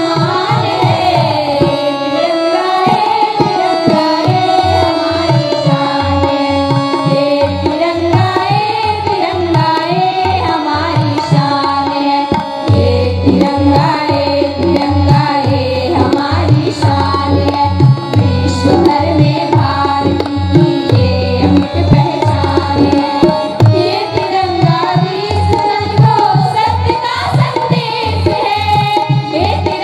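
A devotional song sung to drum accompaniment: a voice carrying a winding melody over a steady drum beat.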